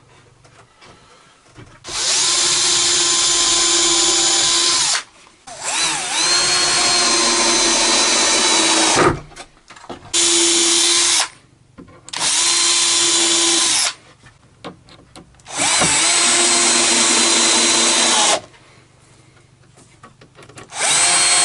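Cordless drill-driver driving screws into plywood. It runs in about six separate runs of one to three seconds each, with a steady whine and short pauses between.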